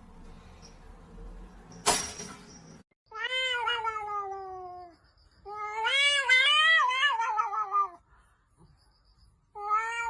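A cat giving long, drawn-out meows, each sliding down in pitch: two in full, with a third starting near the end. They follow a short burst of noise about two seconds in.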